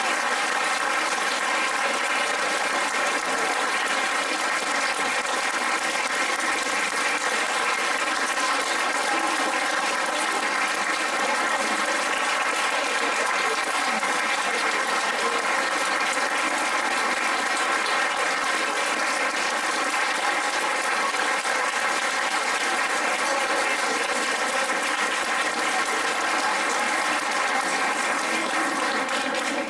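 An audience clapping in steady, sustained applause.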